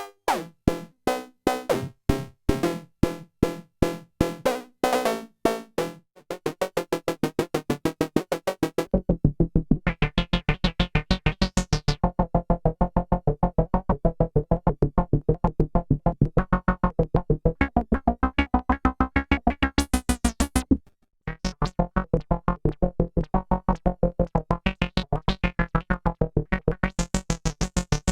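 EDP Wasp monophonic analogue synthesizer playing rapid repeated staccato notes. A low bass pulse joins about nine seconds in, and the pattern breaks off briefly about three quarters of the way through, then resumes.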